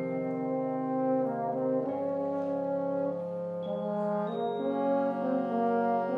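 Small wind and brass ensemble with French horns playing slow, sustained chords; the held harmony shifts to a new chord every second or two.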